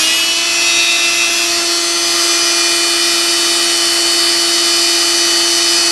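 Shop vac running as a blower, its motor having just spun up and now holding a steady, high whine. Its exhaust hose is blowing air into a tractor's hydraulic tank to drive the leftover flush water out of the drain.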